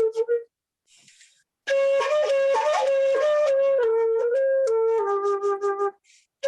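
Solo flute playing a slow melody of held notes, with a breath drawn between phrases about a second in and another near the end.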